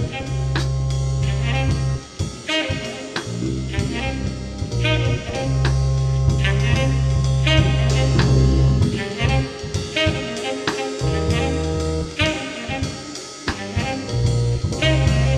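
Lo-fi background music with a steady drum beat and a deep bass line.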